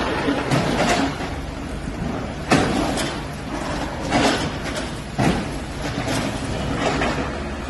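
Hydraulic excavators demolishing a concrete building frame: a steady engine drone with repeated sharp crashes and knocks of concrete breaking and debris falling, about one every second, the loudest about two and a half seconds in.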